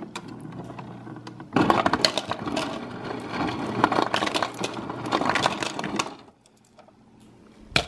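Refrigerator door ice dispenser set to cubed ice: a steady hum for about a second and a half, then ice cubes clatter down the chute into a plastic cup for about four and a half seconds and stop suddenly. A single sharp click near the end.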